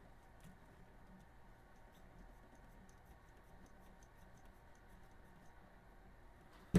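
Faint, scattered small clicks and taps of parts being handled, then one sharp knock near the end.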